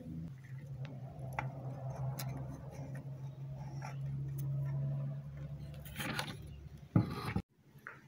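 Small clicks and scrapes of fingers working at a broken rubber damper in a blender motor's metal mounting bracket, over a steady low hum. Two sharper clicks come near the end, and then the sound cuts off suddenly.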